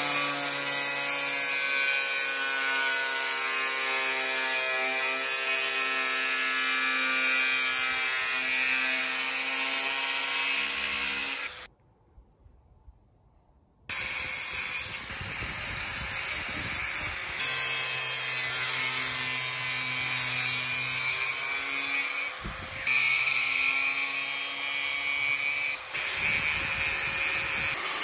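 Angle grinder with a thin cut-off disc cutting stainless steel trays: a steady motor whine over the hiss of the disc grinding through the metal. It stops for about two seconds partway through, then starts again and cuts on, dipping briefly twice in the second half.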